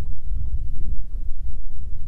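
Wind buffeting the microphone, a loud gusty low rumble, over small waves lapping against a bass boat's hull.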